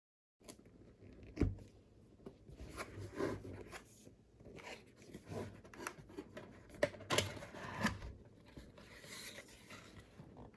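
A keyboard's box and packaging being opened and handled: rustling and tearing of cardboard and plastic, with irregular knocks and sharp clicks, the loudest about a second and a half in and around seven seconds in.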